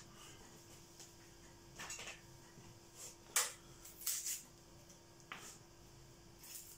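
Dry onion skin crackling and rustling as it is peeled off with a small kitchen knife, in a handful of short, scratchy strokes spaced irregularly about a second apart, over a faint steady hum.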